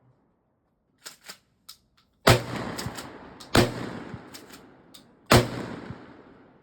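Three loud gunshots about a second and a half apart, each followed by a long echoing decay, with a few fainter sharp cracks shortly before them.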